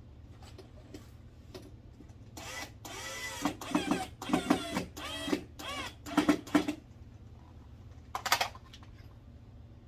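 Cordless drill driving screws into a wooden frame in a string of short whirring bursts, the motor's pitch rising and falling with each run, with one more short burst near the end.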